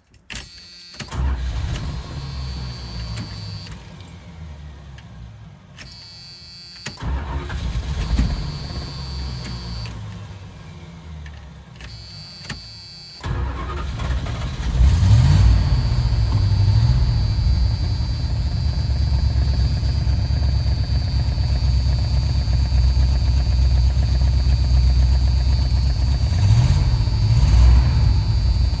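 Dodge Ramcharger engine being started: two attempts that stop, then it catches about 13 seconds in and keeps running, blipped twice. It is running with a misfire.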